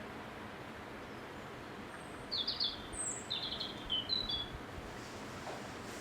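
Steady rushing of wind, with a small bird calling a quick run of short high chirps about halfway through.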